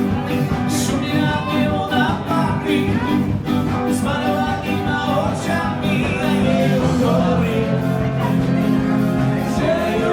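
Dance-band music with a steady beat and a melody line, played by a wedding band.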